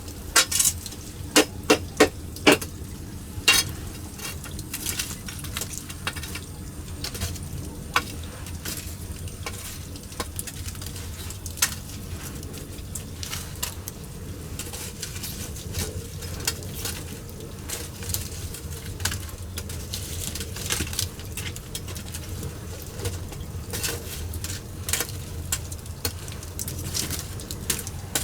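Wood fire crackling and popping in a fire hearth, with irregular sharp clicks over a steady hiss. A few loud sharp knocks sound in the first few seconds.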